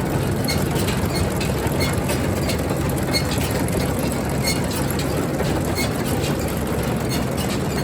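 Claas Rollant 255 round baler running on a tractor's drive, its chains and rollers turning with repeated sharp clicking over the steady hum of the tractor engine.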